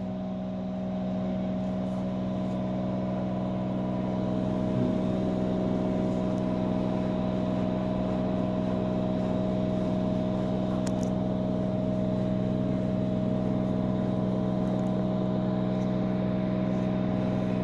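LG 10 kg front-load washing machine's motor running with a steady hum of several fixed tones, swelling in the first second and then holding level: the abnormal motor noise the owner complains of as a very loud sound.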